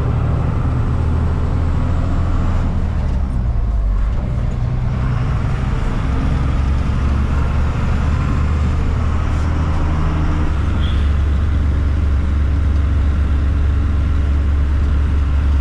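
Tata 1613 container truck's diesel engine running as the truck drives, a steady low drone whose note shifts about 3 seconds in and again about 10 seconds in.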